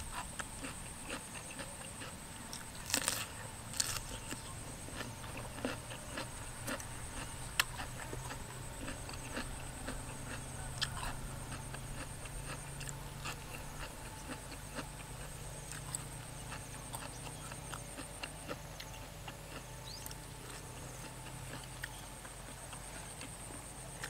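Close-miked chewing and eating: a person biting and chewing fresh raw vegetables and noodles, with small wet clicks and smacks throughout and two sharper crunches about three and four seconds in.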